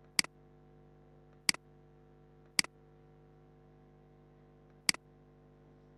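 Four sharp computer mouse clicks at irregular intervals, over a faint steady electrical hum.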